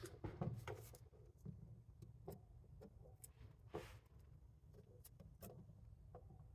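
Scattered small clicks and taps of hand tools on the parts of a motorcycle front brake master cylinder being taken apart, a cluster in the first second and the sharpest click just before four seconds in.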